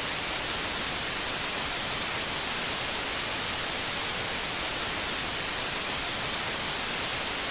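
Steady television static: an even white-noise hiss at constant level, like an untuned TV.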